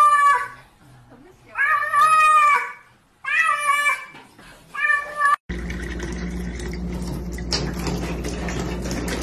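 Grey-and-white cat meowing repeatedly: one meow trailing off at the start, then three more, the second-to-last the longest. About five and a half seconds in it cuts off suddenly, giving way to a steady hum with a hiss.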